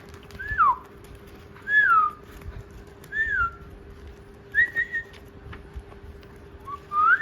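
A parrot giving a series of clear whistles: five short notes, most sliding down in pitch and the last one rising, over a faint steady hum.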